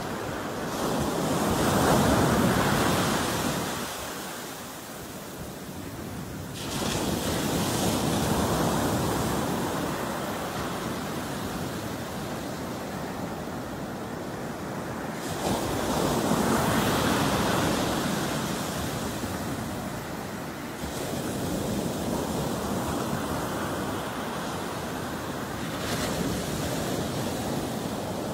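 Ocean surf breaking on a sandy beach, the rush of each wave swelling and easing every several seconds as the foam washes up and drains back.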